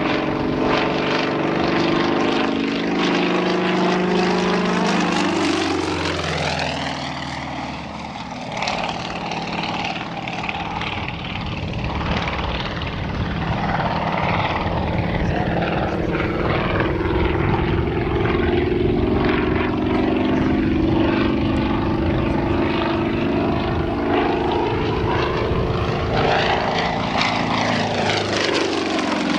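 Yakovlev Yak-55M aerobatic plane's M-14P nine-cylinder radial engine and propeller running hard through an aerobatic display. The engine note drops and the sound dips about six to eight seconds in, then climbs back and holds, with the pitch falling again near the end as the plane sweeps past.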